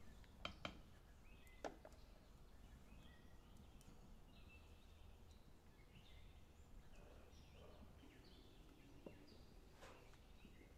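Near silence: faint outdoor ambience with scattered short bird chirps, and a few sharp clicks about half a second in and again near two seconds in.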